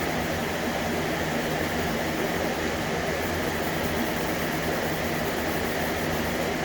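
A steady machine noise: an even hiss over a low hum, running without change.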